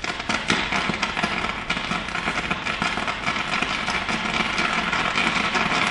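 Burning ethanol and hydrogen peroxide mixture flaring up as potassium permanganate crystals release oxygen into it: a loud, steady rush of flame with rapid crackling pops, growing a little louder.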